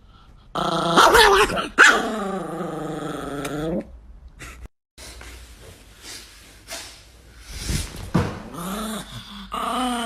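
Small Chihuahua-type dog growling in long, wavering growls. After a quieter stretch in the middle, the growling starts again near the end.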